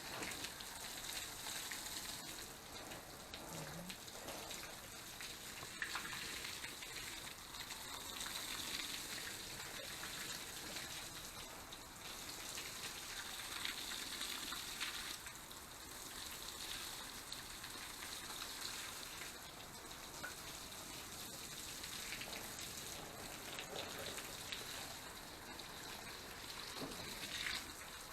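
Water spraying and pattering onto garden beds and plants during watering: a steady splashing hiss that swells and eases now and then.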